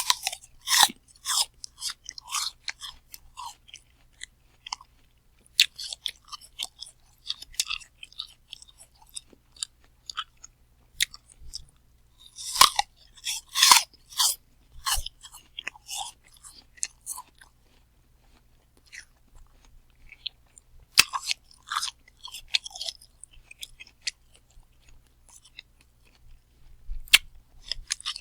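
Someone biting into and chewing a crisp, crunchy apple close to the microphone: sharp wet crunches at irregular intervals, the loudest bites about twelve to fourteen seconds in, with quieter chewing between.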